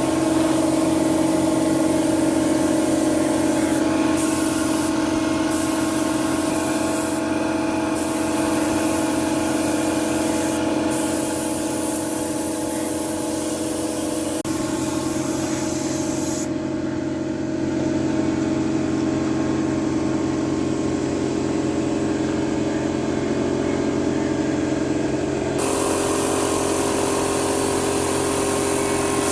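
Motor-driven paint sprayer running steadily: a machine hum under the hiss of spray. The hiss stops about sixteen seconds in and comes back a few seconds before the end, while the hum carries on.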